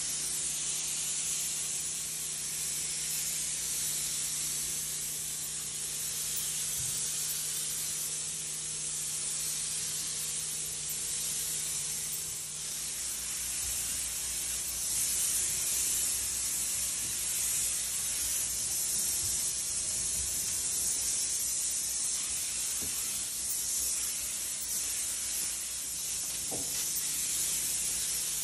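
Steady hiss of a hose-fed handheld disinfectant spray gun misting a treatment solution. A low steady hum sits underneath and stops about halfway through.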